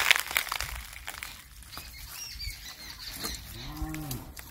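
A cow moos once, a single drawn-out call that rises and falls in pitch, about three seconds in. It follows a brief crinkling clatter right at the start.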